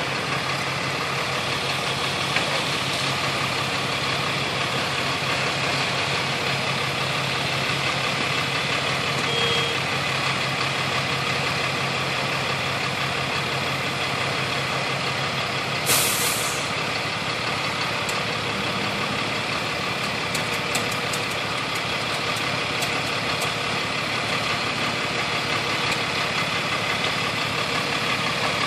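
Heavy truck engines idling steadily, with one short hiss of air about halfway through.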